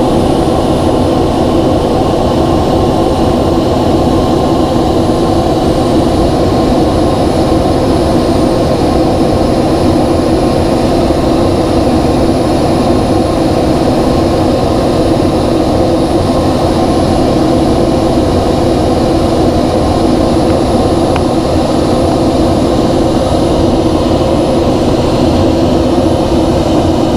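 Steady cockpit noise of a NASA ER-2 in high-altitude cruise: the drone of its single General Electric F118 turbofan and the airflow, heard from inside the canopy. The sound holds even and low-pitched, with no change in level.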